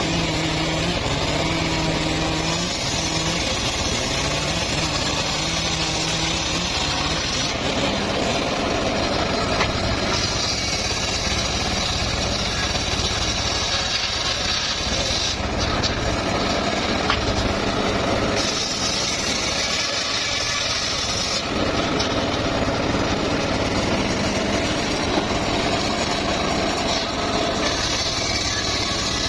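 Engine-powered saw running and cutting mahogany, a steady machine noise with a high-pitched cutting whine that comes and goes every few seconds as the blade moves in and out of the wood.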